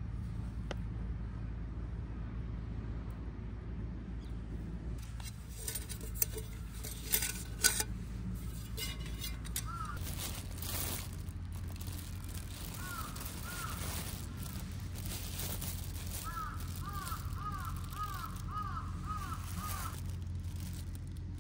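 Crows cawing, a few scattered caws and then a quick run of caws in the second half. A few sharp clinks and knocks come about a third of the way in, over a steady low rumble.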